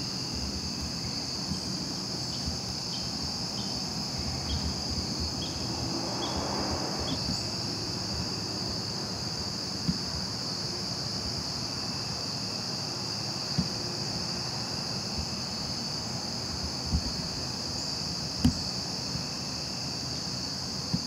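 Steady, high-pitched evening insect chorus in autumn woods, with a few soft knocks now and then.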